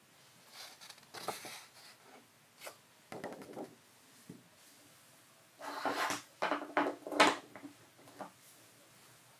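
Coloured balls rolling and clattering down a TrixTrack marble run's wave-slope pieces, coming in short bursts of rattling clicks. The longest and loudest run of clatter comes about six to seven and a half seconds in.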